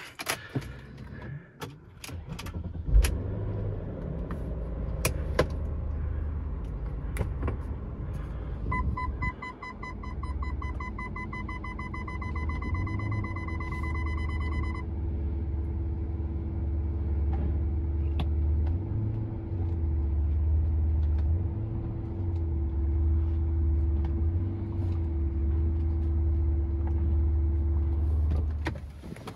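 BMW E39 5 Series engine, heard from inside the cabin, starting about three seconds in and running at idle and low revs, then switched off just before the end. A rapid electronic warning chime sounds for about six seconds in the middle.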